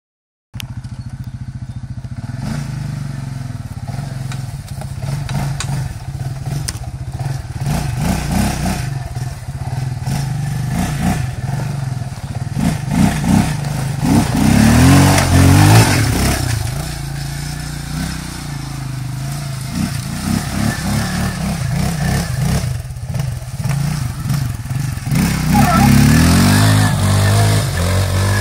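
A TGB Blade 550 LT quad bike's single-cylinder four-stroke engine running under load, revving up and down as the throttle is worked, loudest about halfway through and again near the end.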